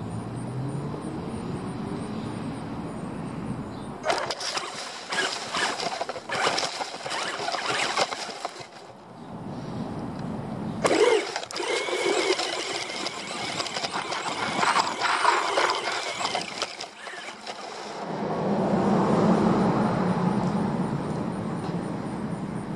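Onboard sound of an RC buggy driving over grass: its motor whines, and in two long stretches the car's run through the grass and over rough ground brings a dense rustling and rattling. The motor whine comes back louder near the end, rising and falling.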